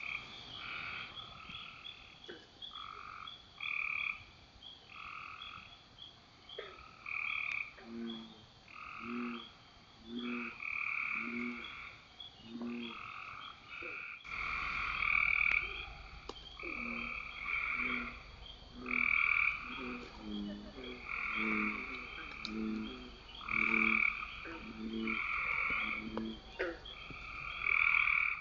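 A night chorus of frogs calling over one another. Short calls of about half a second repeat throughout, and from about a third of the way in a second, lower-pitched frog joins, calling in a steady rhythm of about one call a second.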